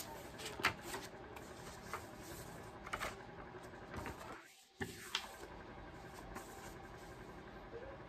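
Faint rustling and crinkling of printed paper sheets being handled and flipped, with a few sharper crackles; the sound drops out briefly about halfway through.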